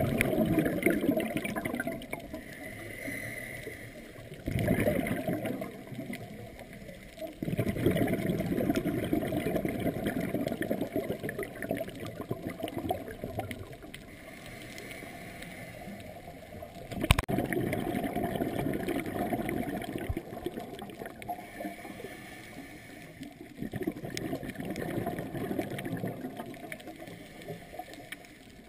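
Underwater bubbling from a scuba diver's exhaled breath, coming in long stretches with quieter gaps between them. A single sharp click sounds about two-thirds of the way through.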